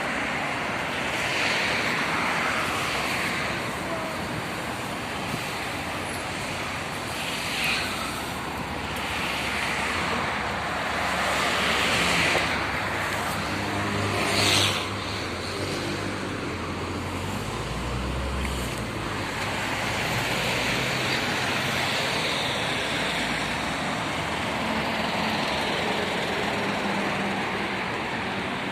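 Road traffic: cars passing one after another in swells, with a heavier vehicle's low engine running past about halfway through.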